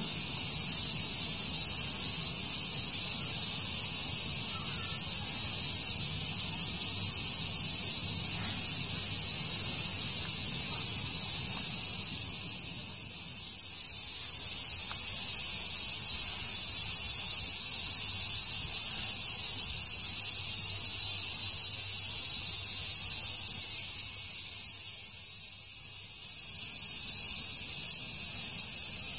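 Cicadas buzzing in a dense, steady chorus: a loud, high-pitched hiss-like drone that dips briefly twice, once near the middle and again near the end.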